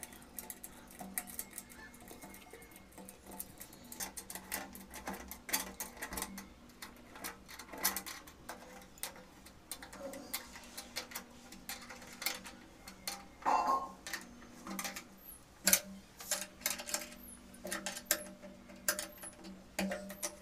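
Light metal clicks and clinks of nuts being fitted on the steel bolts of an electric geyser's heating-element flange and tightened with a spanner. The ticking is irregular, with a couple of louder clinks past the middle.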